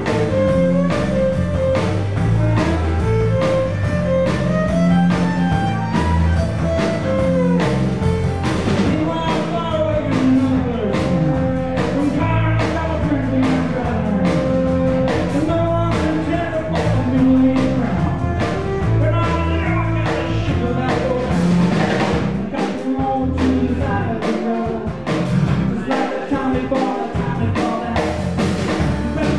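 Folk band playing live: a violin over a strummed acoustic guitar and a drum kit keeping a steady beat.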